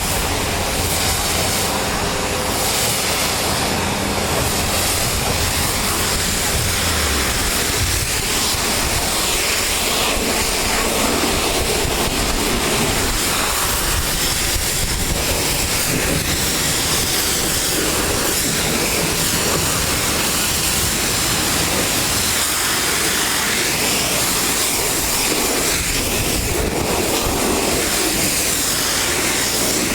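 Pressure washer spraying a steady high-pressure stream of water, with its machine running continuously underneath.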